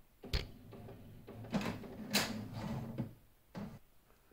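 Handling noise: a sharp knock, then a stretch of small clicks and rubbing, and one more short scrape near the end.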